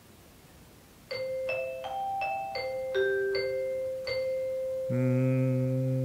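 Mallet-percussion tones, vibraphone- or marimba-like, play the starting pitch of a song in C. A run of about eight struck notes settles on a ringing high C, and a little before the end a lower note is held for a couple of seconds under it.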